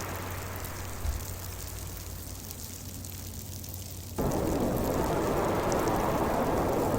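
Heavy winter storm wind: a steady rushing noise that eases and drops lower, with a brief low thump about a second in, then comes back suddenly louder and fuller about four seconds in.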